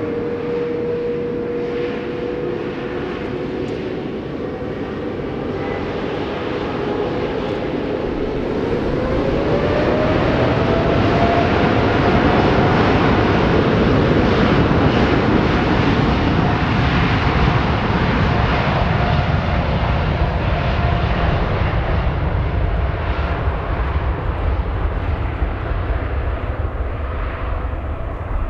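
Boeing 787-9's Rolls-Royce Trent 1000 turbofan engines whining at taxi power as the airliner rolls past on the ground. The engine tone rises in pitch and grows louder about a third of the way in, holds, then eases off near the end.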